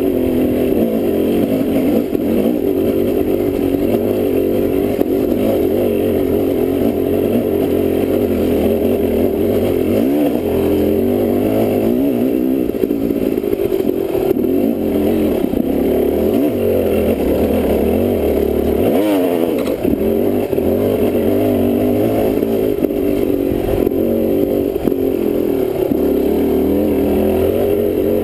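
Dirt bike engine running under way on a rough trail, its revs rising and falling continuously with the throttle.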